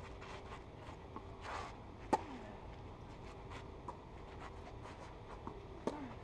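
Tennis rally on a clay court: two sharp racket strikes on the ball about four seconds apart, each followed by a brief falling tone, with fainter hits from the far end of the court in between.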